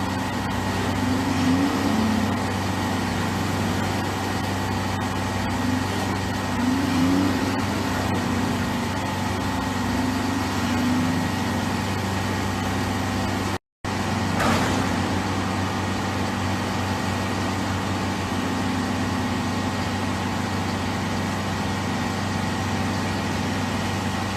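Boat engine running steadily with a constant hum, broken by a brief dropout about halfway through.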